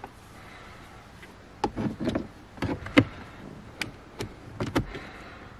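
Light plastic clicks and knocks, about a dozen at irregular spacing starting around one and a half seconds in, as the shift boot's plastic trim surround is handled and lined up in the centre-console opening.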